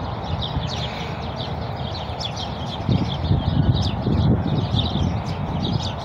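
Many small birds chirping rapidly and continuously as they settle to roost in palm trees, over a steady low rumble with some low thumps in the second half.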